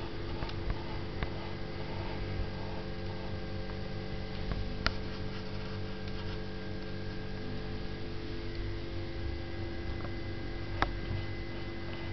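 Steady electrical hum with several held tones, broken by a few sharp clicks, the two loudest about five and eleven seconds in.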